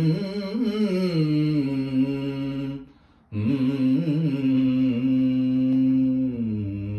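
A solo voice sings long, wavering wordless notes in a Ganesha devotional song, breaking off briefly for breath about three seconds in and fading near the end.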